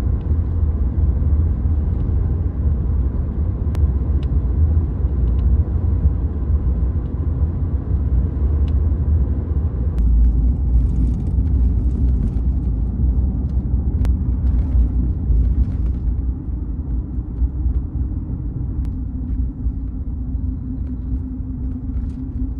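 Pickup truck on the road, heard from inside the cab: a steady low rumble of engine and tyres. It eases a little about two-thirds of the way through, when a steady hum comes in.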